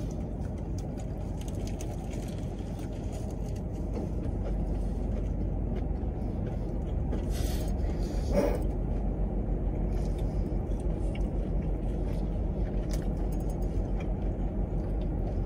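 Steady low rumble inside a parked car's cabin, growing slightly louder about four seconds in.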